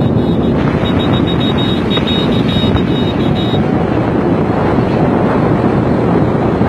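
Steady wind rushing over the microphone, mixed with road and engine noise, recorded from a vehicle moving at highway speed.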